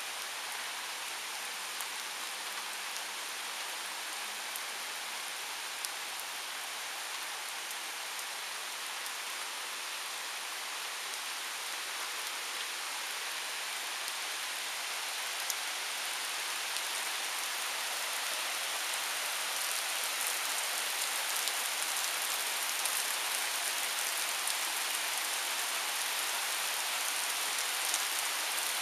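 Heavy thunderstorm rain pouring down, a steady hiss that grows gradually louder over the second half, with a few sharp ticks of drops striking close by.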